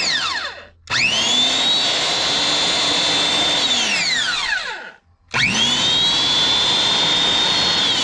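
A 1970s Black & Decker 1 HP circular saw, blade off, test-run on its newly replaced power cord. A short blip winds down at the start; then twice the motor spins up to a steady high whine, runs for about three seconds, and coasts down with a falling whine when the trigger is let go, the second spin-down starting near the end.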